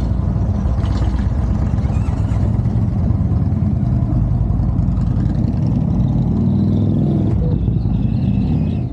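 Motorcycle engine running steadily at road speed, a low, continuous engine note.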